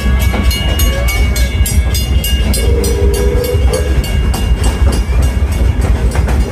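Narrow-gauge steam train running: the cars clatter in an even, quick rhythm of about four or five beats a second over a steady low rumble.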